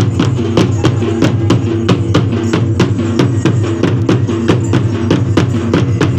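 Music with a fast, steady drumbeat and a repeating melody.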